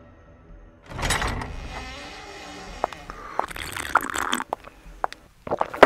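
A glass tumbler handled at a wooden table: a rustling burst about a second in, then a few light clinks of the glass as it is drunk from, and a sharp knock near the end.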